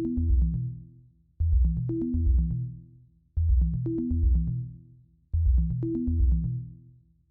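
Electronic background music: a deep synth bass line with a steady beat, repeating in short phrases about every two seconds, each fading away before the next.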